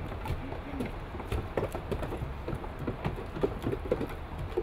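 Goats' hooves clattering on wooden stairs as several goats trot down them, in a quick, irregular run of knocks.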